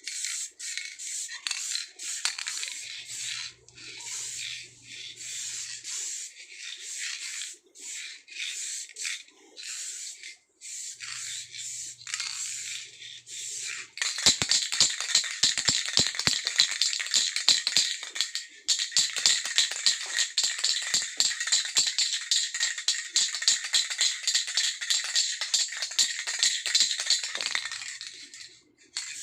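Time-lapsed hand refinishing of a road bike frame: a hiss broken into many short bursts, then about halfway through a louder, dense run of rapid scratchy rubbing strokes.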